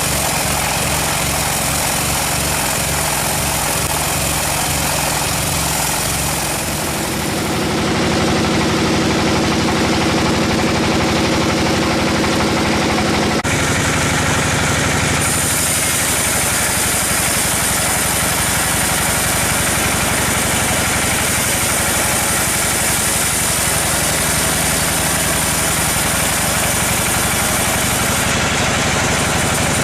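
Engine-driven sawmill machinery running steadily, a continuous mechanical engine sound. It grows louder about a quarter of the way in and changes abruptly about halfway through.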